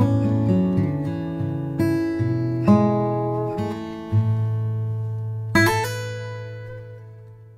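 Acoustic guitar music: picked notes and chords, with a strummed chord about two thirds of the way through that is left to ring and fade away.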